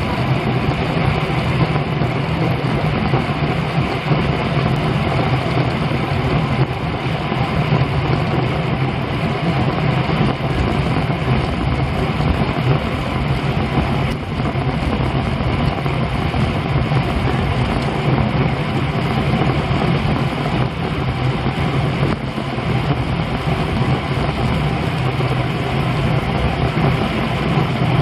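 Steady wind rush and tyre-on-road hum from a road bicycle riding at about 24 mph, wind buffeting the bike-mounted camera's microphone.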